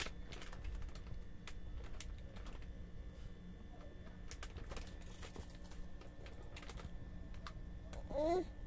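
A baby biting and chewing a raw bitter gourd (ampalaya): scattered small clicks and smacks of mouth and teeth on the gourd's bumpy skin. Near the end the baby gives a short vocal sound.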